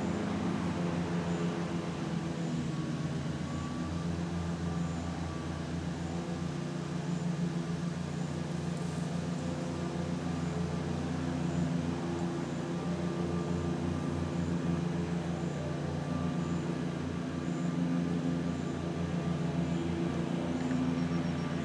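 A machine running off-screen with a steady, even low drone.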